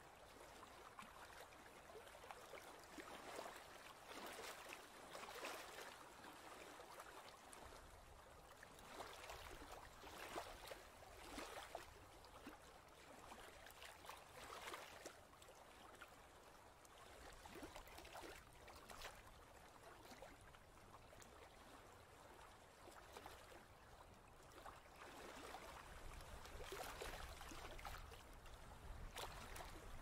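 Faint ocean-wave noise: a steady hiss that swells and falls back every few seconds.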